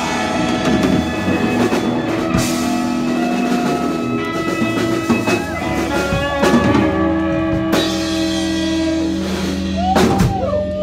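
Live punk band playing: fiddle bowed over electric guitar, bass guitar and drum kit, with several loud drum and cymbal hits.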